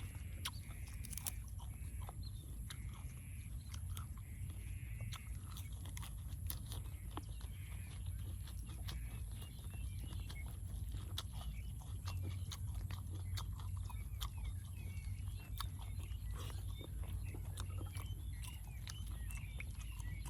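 Person chewing and biting food close to the microphone: many short wet mouth clicks and some crunching, over a steady low rumble.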